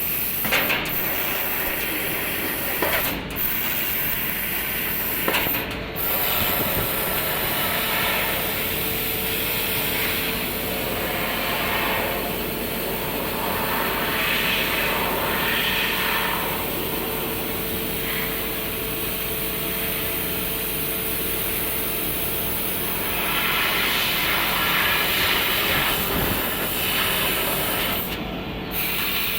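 Senfeng CNC laser cutter cutting 3 mm sheet metal: a steady hiss of machine noise with swells that come and go every few seconds, over a steady hum.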